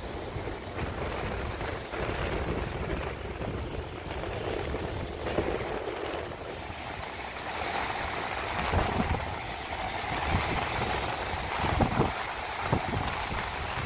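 Wind blowing over the microphone: a steady rushing noise with low, buffeting gusts that hit several times in the second half.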